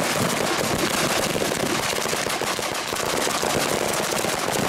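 A long firecracker chain laid out along the ground going off, a dense unbroken rattle of rapid sharp bangs.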